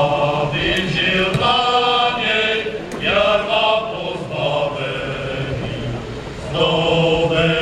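A group of voices singing a hymn in slow phrases of long held notes, with a short pause between lines about two thirds of the way through.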